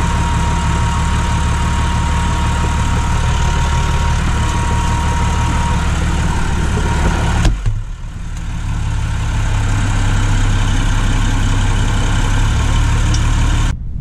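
Tractor diesel engine idling steadily, heard from inside the cab. About halfway through there is a sharp click, after which the engine hum shifts and runs on.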